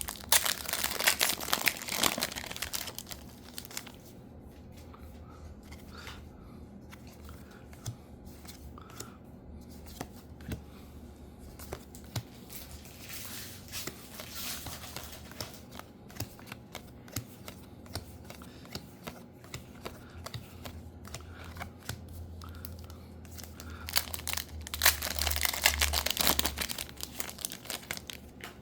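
Foil trading-card booster packs being torn open and crinkled: a loud spell of tearing and crinkling at the start and another near the end, with quieter rustling and handling in between.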